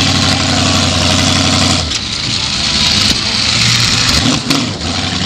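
Ford 351M V8 of a 1979 Ford Thunderbird derby car running hard, heard from the driver's seat; the engine note eases off about two seconds in and again near four seconds as the throttle changes. A few sharp knocks come through over it.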